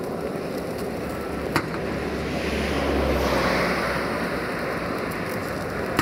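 A heavy vehicle moving and rumbling, swelling louder about halfway through, with wind noise on the microphone and a sharp click about a second and a half in.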